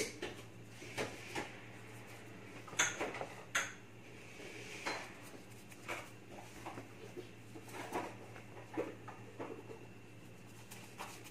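Scattered light clinks and taps against a large metal cooking pot while rice is worked by hand, the two sharpest about three and three and a half seconds in, over a steady low hum.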